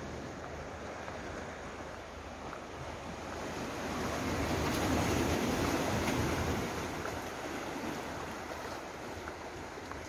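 Sea waves washing against a rocky shore as a steady rush, with one swell building about four seconds in and easing off again by about seven seconds.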